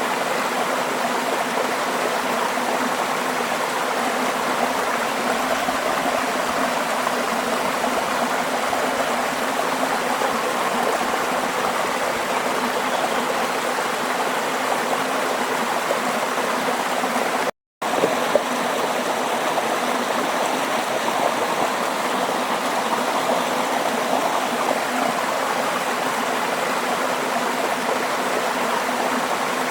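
Steady rushing of running water, like a flowing stream. About 18 seconds in it cuts out to silence for a split second, then carries on as before.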